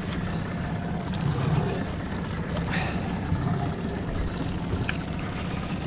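Steady low rumble of a fishing boat's engine running at idle, with a few faint clicks.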